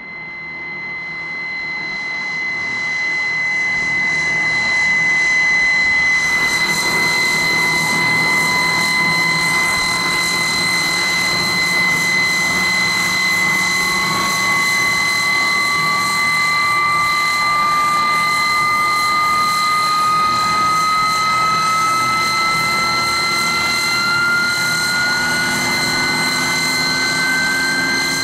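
Hawker Siddeley HS748's Rolls-Royce Dart turboprop engines running on the ground for an engine run: a loud, steady high whine over a rushing noise, swelling in over the first few seconds, with a second tone that climbs slowly in pitch from about seven seconds in.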